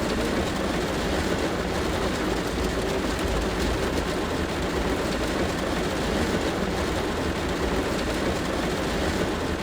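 Heavy rain drumming steadily on a car's metal roof, a dense unbroken patter with a deep rumble underneath.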